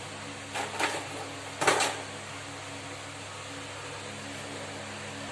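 Steady background hum of several low tones, with two short rustling or scraping noises about half a second and just under two seconds in, the second louder, as of tools or parts being handled on the workbench.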